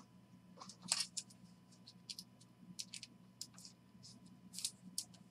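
Trading cards being handled and sorted in hand: a string of faint, irregular flicks and slides as cards rub and snap against one another, the clearest about a second in and again near the end.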